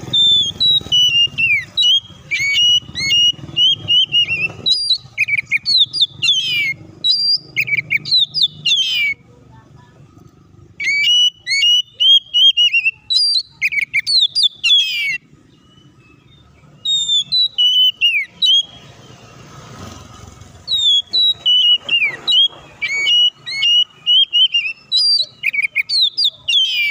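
Oriental magpie-robin (kacer) singing loud runs of quick, varied whistled notes that swoop up and down, in bouts broken by brief pauses.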